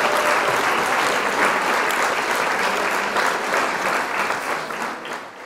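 Audience applause at the end of a song, played back from a cassette tape, fading out over the last second or so.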